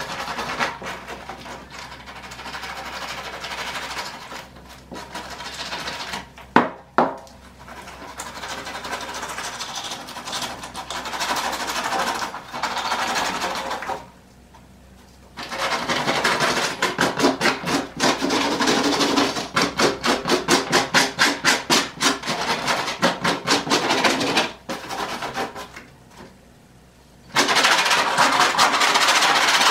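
Hand tool scraping old, crumbling foam off a car headliner board in runs of quick back-and-forth strokes, several a second. There are short pauses about halfway through and again near the end.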